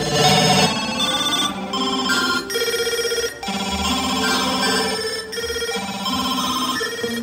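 Live rock band music led by a bright synthesizer keyboard playing held chords that change about once a second, with no vocals.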